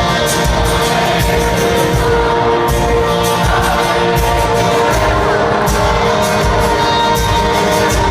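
Live rock band playing at concert volume, heard from the audience, with steady held chords.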